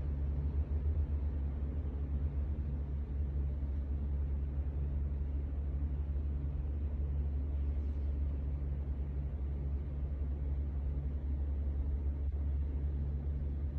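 Steady low hum, unchanging throughout.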